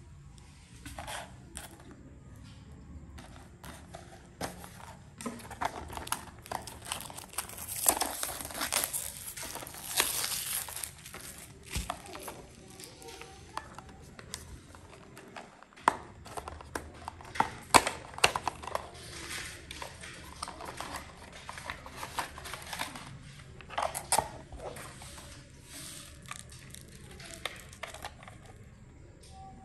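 Small cardboard box and plastic insert tray being handled and opened by hand: crinkling and rustling packaging with many scattered sharp taps and clicks.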